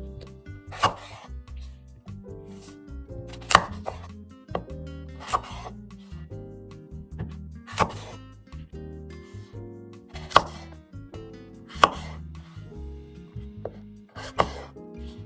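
Knife chopping on a cutting board in single, spaced strokes about every two seconds, some sharper and louder than others.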